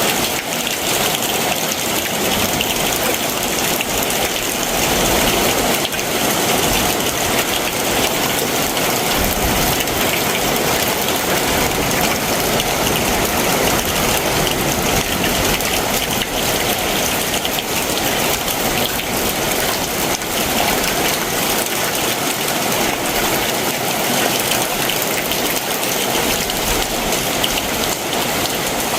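Heavy summer monsoon rain pouring steadily, a dense hiss of drops hitting surfaces.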